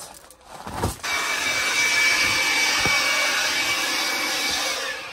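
Makita cordless handheld blower switched on about a second in, running steadily with a high whine over the rush of air as it blows cobwebs and dust off fence boards; it winds down near the end.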